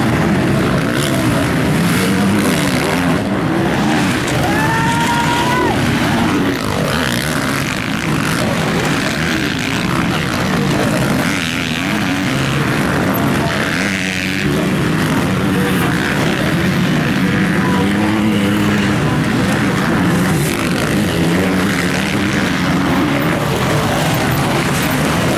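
Several motocross bike engines revving hard as bikes go through a dirt corner one after another. The pitch rises and falls continuously with overlapping engines, and there is no let-up.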